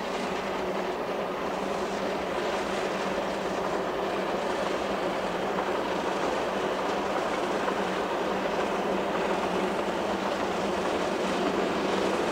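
NG/G16 class Garratt steam locomotive hauling its train of coaches along the line, a steady running noise that grows slowly louder as it draws nearer.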